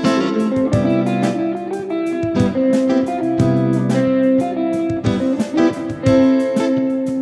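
Strat-style electric guitar played through a Zoom G1Four multi-effects pedal: plucked single notes and chords that ring on.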